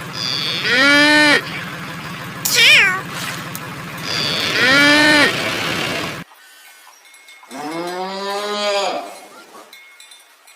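Cat meowing three times, one of the meows short and high with a falling pitch. After a break, one lower, longer call from another animal.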